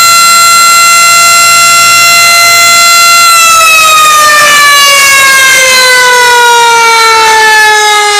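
Recorded tornado warning siren played from a siren app: one loud held tone that starts winding down slowly in pitch about three seconds in.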